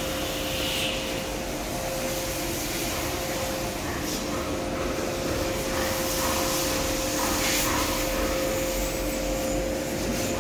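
Binbao SCL sheet cutting machine running steadily as 115-micron PET film feeds over its rollers: an even mechanical rush with a steady hum underneath.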